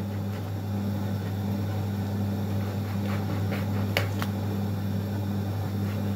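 Kitchen knife trimming lamb trotters on a wooden cutting board, with a few faint clicks of the blade near four seconds in, over a steady low hum.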